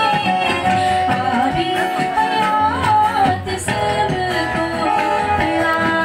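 A singer performing a song with instrumental accompaniment; the voice carries a held melody that bends up and down over steady backing.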